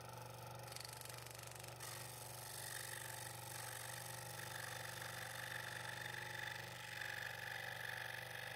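Scroll saw running steadily, its blade cutting through a double-stacked wooden blank along a pattern line: a steady low hum with a higher whine that grows stronger a few seconds in.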